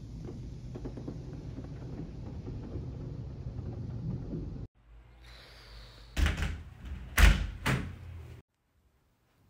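Automatic car wash heard from inside the car: a steady rush of water and foam spray on the windshield and body, which cuts off suddenly about halfway through. Then come three loud thumps, the middle one loudest.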